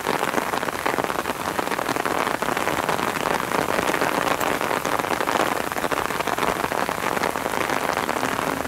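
Steady rain falling: a dense, even hiss of many small drops, fairly loud and without pause.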